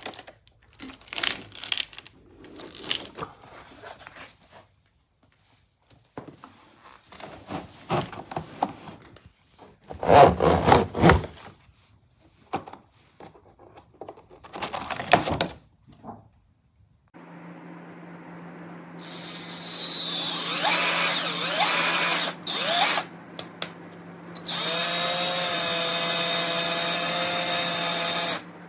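Irregular clattering and knocks of tools and a plastic case being handled, then a 12V cordless drill-driver's motor whirring: a few short runs with shifting pitch, then a longer steady run near the end that stops suddenly.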